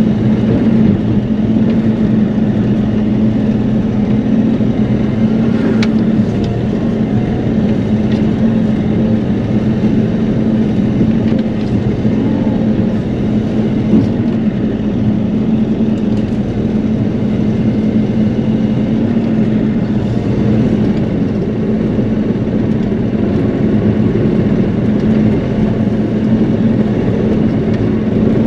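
Bobcat E42 mini excavator's diesel engine running steadily under work, a constant drone heard from inside the cab, with a couple of brief clicks.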